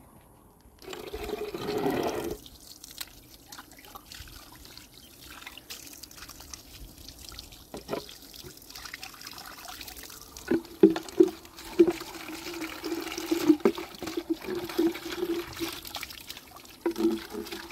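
Water running from a pipe into a plastic jug and splashing, with a few knocks as the jug is handled. A brief louder whoosh comes in the first couple of seconds.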